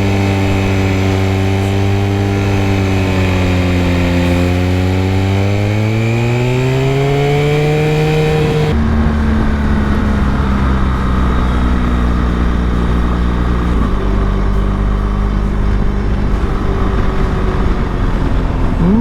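Motorcycle engine running under way, with rushing noise over it; the engine note climbs steadily as the bike accelerates, then drops abruptly about nine seconds in to a lower, steady note.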